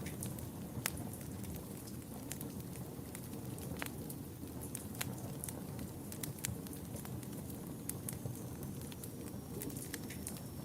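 Wood fire burning in a fireplace: a steady low rush of flame with irregular sharp crackles and pops, the loudest about a second in.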